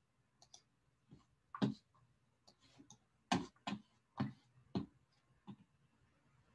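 Sparse, irregular faint clicks and taps, about seven of them, with short gaps of quiet between.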